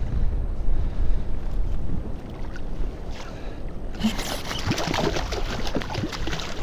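Low wind rumble on the microphone, then about four seconds in, crackling water splashes as a hooked tautog thrashes at the surface beside the kayak.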